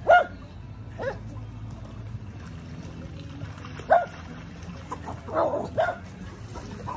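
Dog barking: a sharp bark right at the start, then single barks about a second in and four seconds in, and a quick cluster of barks a little past five seconds.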